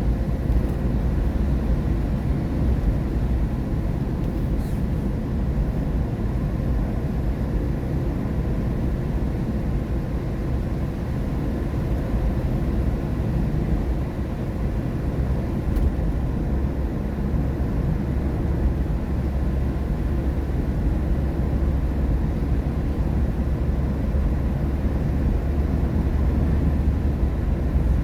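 Steady road and tyre noise heard inside a moving car's cabin at highway speed on a wet road, a continuous low rumble with no change.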